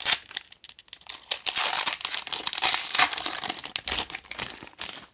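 Foil wrapper of a Magic: The Gathering booster pack crinkling as it is torn open and handled: a dense crackle, loudest around the middle.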